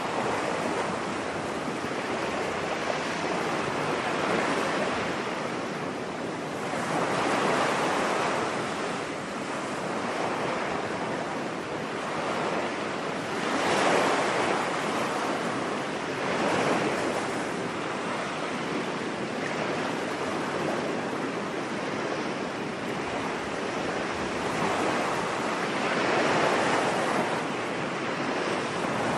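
Ocean waves washing onto a beach: a continuous surf hiss that swells and fades every few seconds as waves break.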